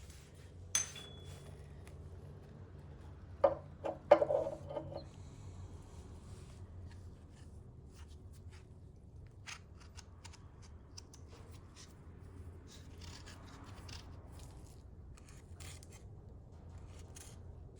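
Hands working small parts around a motorcycle's oil filter housing: a click, two sharp knocks about 3.5 and 4 seconds in, then light scraping and scattered faint clicks.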